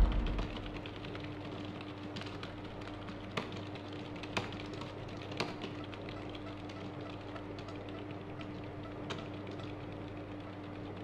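A steady low hum with a handful of sharp, light clicks scattered through it, about one a second for a few seconds and then sparser.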